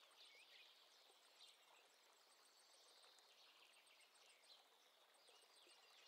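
Near silence: quiet room tone with faint, scattered high chirps, like distant birds.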